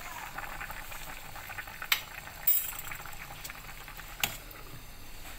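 Pot of chicken soup boiling, with a steady bubbling crackle. A metal ladle clinks against the stainless steel pot about two seconds in, and a glass lid is set down on the pot with a sharp click near the end.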